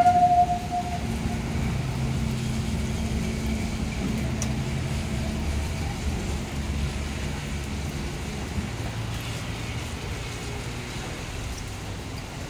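Randen electric tram pulling away past the depot tracks: a short steady high tone in the first second, then a low motor hum and rumble that slowly fades.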